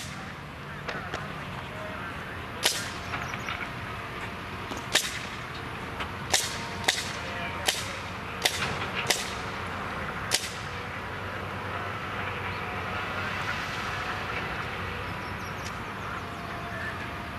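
Sharp clanks of track work, about eight irregular strikes between roughly three and ten seconds in, over a steady engine hum of work machinery.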